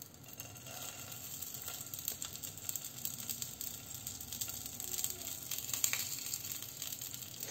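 Hot oil sizzling and crackling softly in a frying pan as egg-filled eggplant halves are set down in it one by one.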